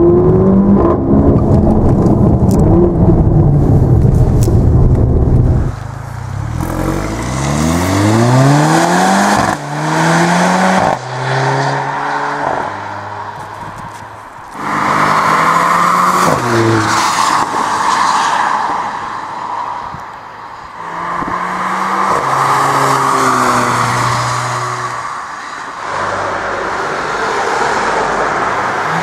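Mercedes-AMG GLA 45's turbocharged 2.0-litre four-cylinder under hard throttle, heard first from inside the cabin and then from outside. From about six seconds in it accelerates again and again, the pitch rising through each gear and dropping at every shift.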